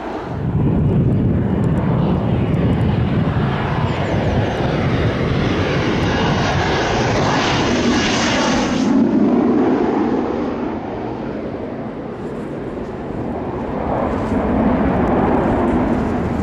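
Panavia Tornado IDS jet with twin RB199 turbofans, a loud whine and rumble as it passes low overhead on approach with its landing gear down. The pitch sweeps down as it goes by. About nine seconds in the high whine cuts off suddenly, leaving a lower jet rumble that swells again near the end.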